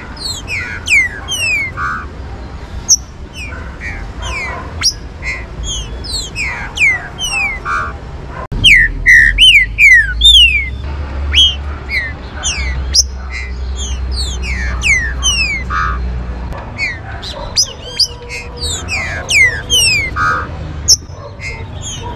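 Green-winged saltators (trinca-ferro) singing and calling: a fast run of sharp, down-slurred whistles, several overlapping, loudest about nine to eleven seconds in. A low rumble sits under the calls through the middle.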